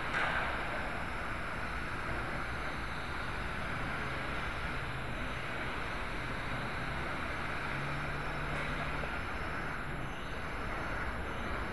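Steady propeller and motor noise of a small toy RC quadcopter, heard through its own onboard camera as a continuous hiss with a faint low hum.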